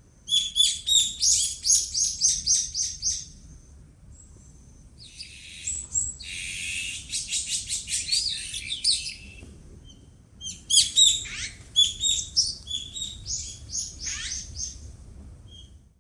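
Songbirds singing: three bouts of rapid, high chirping notes, with short pauses between them, over a faint low background rumble.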